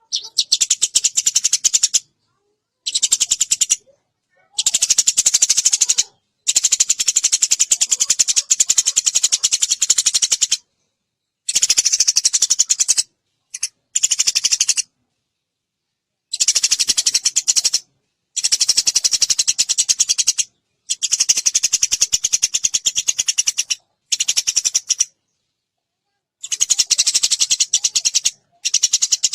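Eurasian tree sparrows chirping rapidly and continuously in bursts of one to four seconds, broken by abrupt dead-silent gaps.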